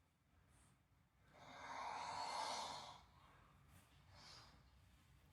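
Snoring: one long, noisy breath lasting about a second and a half, then a fainter, shorter one about a second later.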